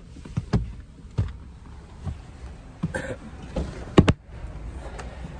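A string of sharp clicks and knocks as people move about inside a parked car, with the loudest click about four seconds in.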